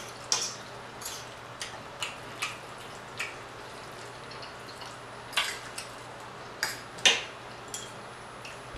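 Close-up eating sounds: wet mouth clicks and smacks of chewing, with light taps of a utensil on a plate. They come as scattered short clicks, the loudest about seven seconds in.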